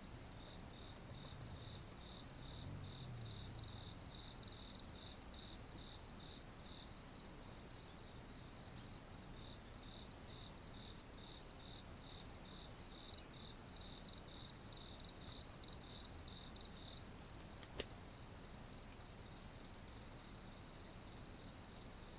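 Faint cricket-like insects trilling steadily in a high pitch, with two runs of rhythmic chirps at about three a second. A single sharp click comes near the end.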